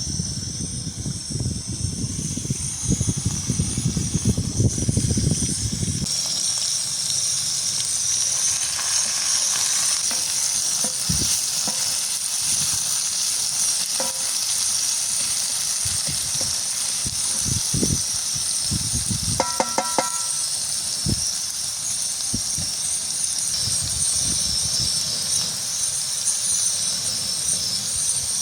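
Food sizzling as it fries in a pan, a steady hiss. There is low rumbling in the first few seconds, occasional knocks, and a short metallic clink about two-thirds of the way through.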